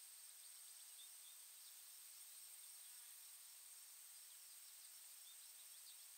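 Near silence: faint field ambience with a steady high-pitched insect drone and scattered faint bird chirps.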